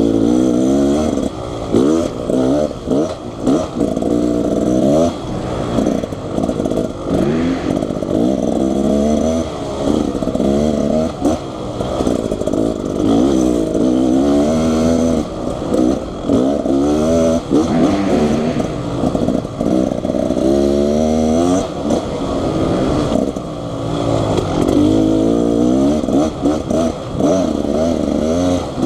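Dirt bike engine being ridden off-road, its pitch rising and falling over and over as the throttle is opened and closed and the rider shifts gears.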